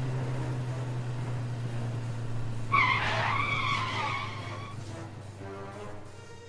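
Motorbike sound effect: a steady engine hum, with a tyre screech about three seconds in as the bike skids to a stop, then the engine fades away.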